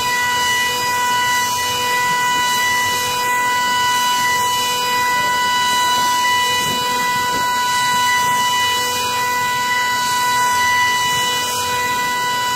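High-speed CNC milling spindle at 30,000 rpm with an end mill cutting aluminium plate: a loud, steady whine with a strong tone over a hiss of cutting and chips.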